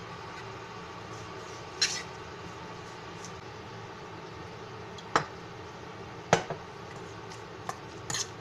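Metal spoon clinking against a stainless steel mixing bowl while stirring sliced raw beef in its marinade: several sharp clinks at irregular intervals over a steady background hiss.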